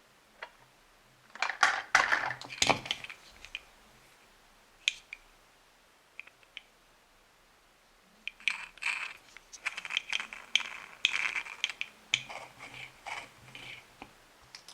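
Plastic Play-Doh toy parts being handled, making clicks and rattles. There is a short cluster about two seconds in, a few single clicks after that, and a longer run of busy clicking from about eight seconds until near the end.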